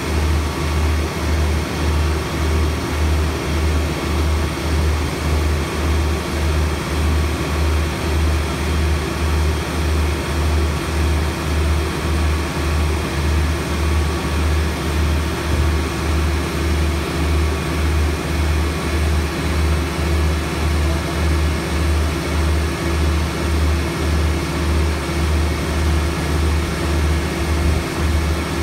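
Heavy engine running steadily with a deep, regular throb of about one and a half pulses a second, like the pump engine of a fire appliance supplying charged hose lines.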